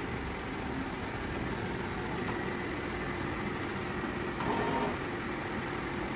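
Steady mechanical hum with a faint high whine, and a brief louder tone about four and a half seconds in.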